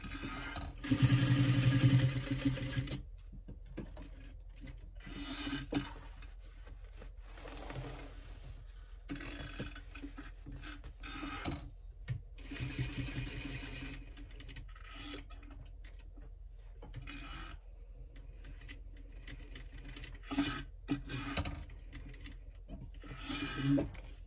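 Industrial sewing machine stitching through a fabric bag in a series of short runs, stopping and starting as the fabric is guided. The longest and loudest run comes about a second in.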